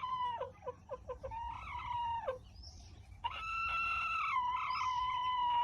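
Rooster crowing twice: a first crow broken into short falling notes in its middle, then a long, held crow starting about three seconds in.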